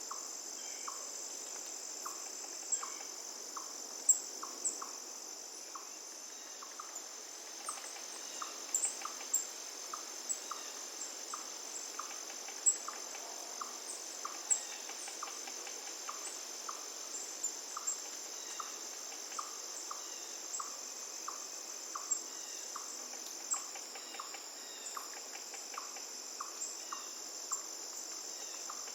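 Insects trilling steadily and high, with a soft pip repeating about three times every two seconds and scattered short, sharp bird chirps, over a faint rush of flowing river water.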